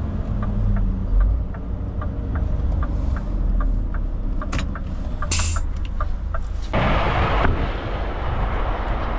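Truck engine running low as the vehicle is brought to a stop, with a regular light ticking two or three times a second. About five seconds in comes a short sharp hiss of air, then a louder rush of noise lasting under a second.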